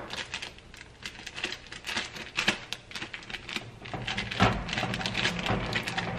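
Chopped onions and garlic sizzling in olive oil in an enamelled cast-iron Dutch oven, with irregular crackles, as raw ground sausage is squeezed from its plastic casing into the pot. The sizzle grows louder from about four seconds in as more meat lands in the hot oil.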